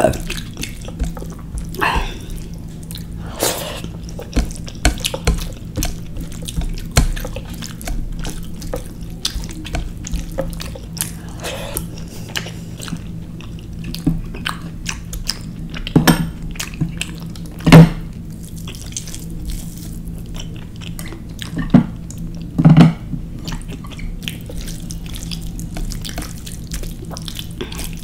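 Close-miked, wet, squishy clicking of fingers mixing rice with rajma curry on a plate, with chewing and mouth sounds, over a steady low hum. A few louder wet smacks come in the second half.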